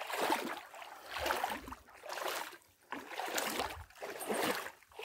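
Rhythmic water splashing, about one splash a second.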